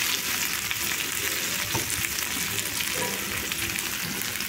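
Flour-coated marinated chicken pieces sizzling steadily in oil in a grill pan on medium heat, with a few light clicks and pops as metal tongs turn the pieces.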